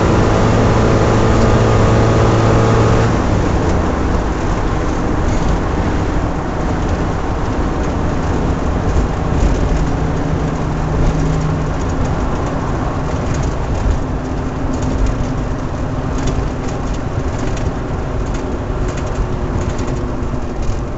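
AMC 150 2.5-litre four-cylinder engine with a Weber 38/38 carburetor, running hard with a strong, steady note. About three seconds in the note drops, and the engine runs on at lower revs under a rougher, noisier sound.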